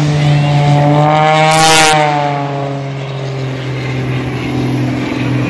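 A small airplane's engine drones overhead during an aerobatic display. Its note rises and then falls in pitch as the plane passes, over a steady low hum. A brief rush of noise comes about a second and a half in.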